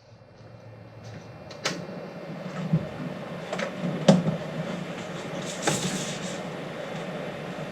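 A few separate clicks and knocks of plastic printer parts being handled and fitted, over a steady low hum.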